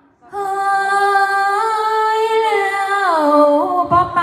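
A woman singing unaccompanied in the Thai nhuôn folk style: one long held wordless note, steady at first, then sliding down in pitch about three seconds in with small wavering turns.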